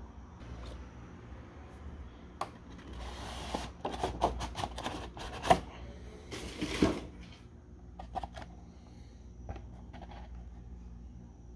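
Plastic and cardboard toy packaging handled by hand: scattered clicks and crinkling rustles, busiest in the middle, with one sharp snap about five and a half seconds in.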